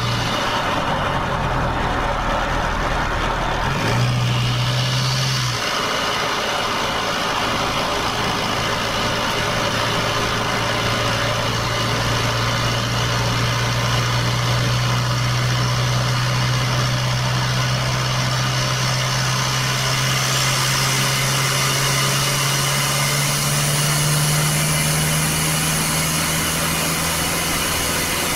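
Toyota 2KD four-cylinder turbodiesel engine and road noise heard inside the cabin while cruising on a highway, a steady drone. In the last third the engine note climbs in pitch and the wind and tyre hiss grows as the vehicle speeds up.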